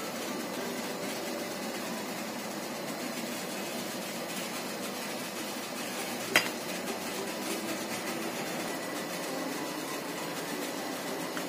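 Steady hiss from the gas burner and boiling steamer pot, with one sharp clink of kitchen metal about six seconds in as the metal cake tin is lifted out of the steamer and set down.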